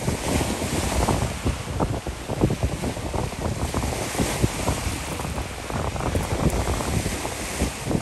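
Small surf breaking and washing up a pebble beach, heard through heavy wind buffeting on the microphone, which sets off irregular low thumps throughout.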